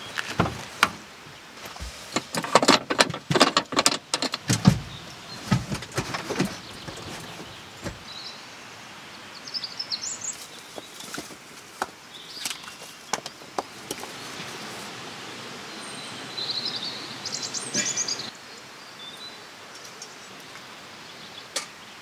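A quick run of knocks and clatter from the camper van's door and gear being handled for the first several seconds, then birds chirping over the steady rush of a small stream.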